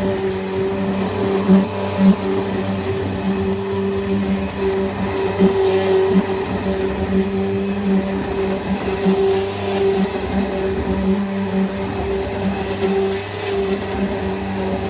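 Bissell vacuum cleaner running steadily, its motor giving a constant hum with a higher tone above it.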